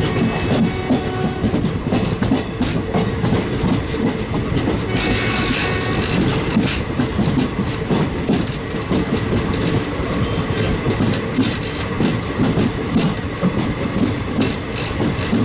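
Kerala Express passenger train rolling by, its wheels clattering steadily over the rail joints and points of the loop line. A brief higher-pitched squeal comes about five seconds in.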